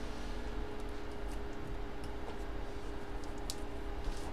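A few faint ticks of trading cards and paper inserts being handled, over a steady background hum.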